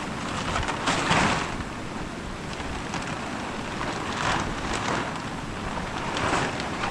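Large plastic tarpaulin rustling and crackling in several swishes as it is pulled and spread over the ground, the loudest about a second in, over steady wind noise on the microphone.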